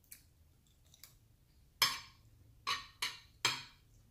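Metal spoon clinking and scraping against a plate of food: two faint clicks, then four sharp clinks with brief ringing in the second half.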